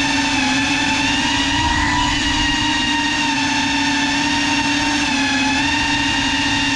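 Small quadcopter drone's electric motors and propellers whining steadily, heard from the camera on board. The pitch wavers slightly and steps up a little about two seconds in.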